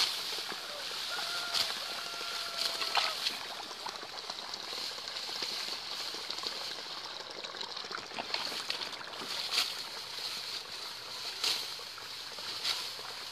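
Ripe rice stalks being cut by hand, a crisp cut and rustle of stalks every second or two over a steady high hiss.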